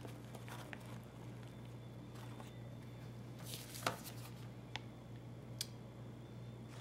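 Faint handling sounds of hot-glue crafting: a few light clicks and rustles as a hot glue gun and a foil-like, spray-painted paper bow are handled, over a steady low hum. The clearest click comes a little before the four-second mark.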